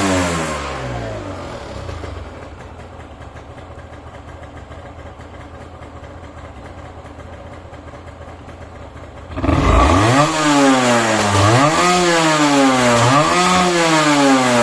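Honda NS250F two-stroke V-twin engine settling from a rev into a steady idle, then revved sharply about nine seconds in and blipped up and down about three times. The owner presents it as running with no abnormal noise.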